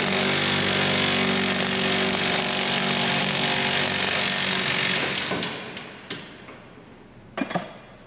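Cordless impact wrench hammering the screw of a ball joint press, pressing a worn ball joint out of a Jeep's front steering knuckle. It runs steadily for about five seconds, then winds down, and a few short metal clanks follow near the end.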